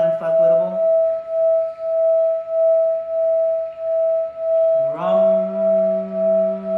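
Crystal singing bowl sounding one steady ringing tone that pulses about twice a second. A low voice holds a long chanted note over it: the note fades out in the first second and comes back about five seconds in with a short upward slide, then is held.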